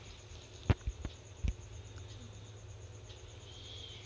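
Hands unwrapping a cotton towel from a pressed block of paneer on a steel plate: a few short, soft knocks in the first second and a half, then faint handling over a low steady hum.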